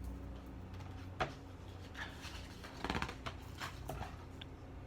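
Faint rustling of a picture book's paper pages being handled, with a few light taps, over a low steady room hum.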